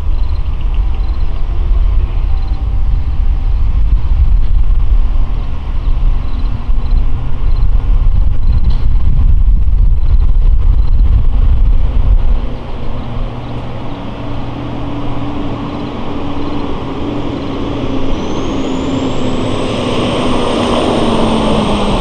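LIRR DM30AC dual-mode diesel locomotive pulling a train away from the station, its diesel engine working hard with a heavy low rumble. The rumble drops off sharply about twelve seconds in as the train recedes. A grade-crossing bell dings evenly and faintly throughout.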